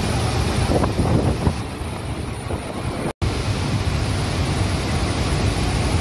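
Athirappilly waterfall in heavy flow: a loud, steady rush of falling water with wind buffeting the microphone. The sound cuts out for an instant about three seconds in.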